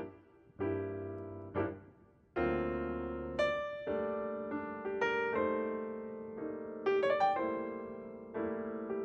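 Background solo piano music: slow chords and single notes struck and left to ring and fade, with a short gap about two seconds in.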